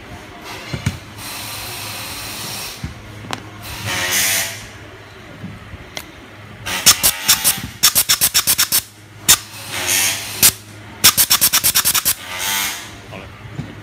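Compressed air hissing from an air blow gun into a hydraulic cutter's valve body, blowing it clean during the valve repair: several longer blasts, and two runs of quick triggered pulses about five a second.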